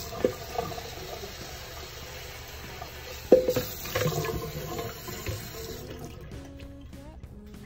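Tap water running from a bathroom sink faucet into a plastic bucket, filling it, until about six seconds in. A sharp knock about three seconds in is the loudest sound, with background music underneath.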